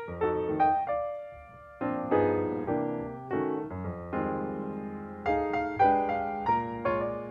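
Background piano music: notes struck in a steady flow, with a short pause about a second in.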